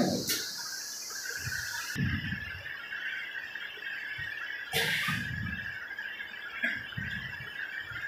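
PVC pipe coupler machine running with a steady high whine, water splashing into its tank, and irregular knocks and clatter of short PVC pipe pieces being handled, with a sharp clack about five seconds in.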